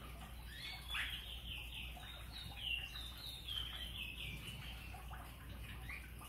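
A small bird singing: a run of short, downward-slurred notes that starts about half a second in and steps lower in pitch over a few seconds.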